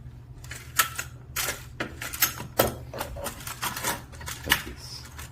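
Irregular clicks and rattles of the parts of a one-side stack curtain system being handled and fitted together by hand, over a steady low hum.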